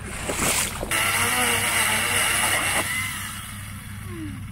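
Two-stroke chainsaw running as it cuts into a fallen tree trunk, starting about a second in. It gets quieter about three seconds in, and its engine drops in pitch near the end.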